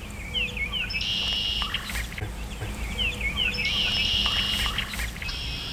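A songbird singing a repeated phrase: a few short down-slurred chirps followed by a buzzy trill of over half a second, three times.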